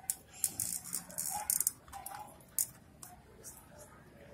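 Cockatiel pecking at seeds on newspaper: a series of light, quick clicks and taps from its beak, coming in irregular clusters.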